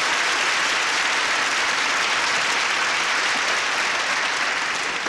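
Studio audience applauding steadily, starting to fade near the end.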